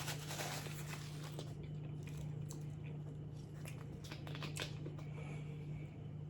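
Close-miked chewing and wet mouth clicks of someone eating a chili cheese dog, with small scattered smacks. A steady low hum runs underneath.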